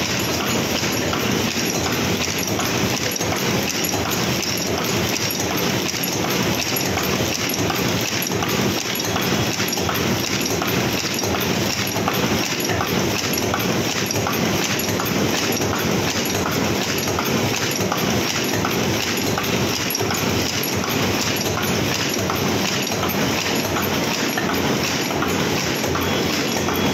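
Automatic paper cup making machine running while forming cups: a rapid, steady, rhythmic mechanical clatter.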